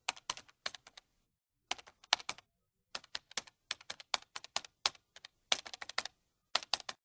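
Computer keyboard typing: sharp key clicks in uneven runs, broken by short pauses.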